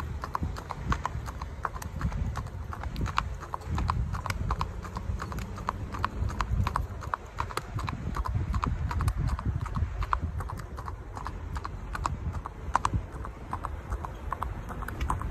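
A horse's hooves clip-clopping on an asphalt road at a walk: an even run of sharp hoofbeats, about four a second.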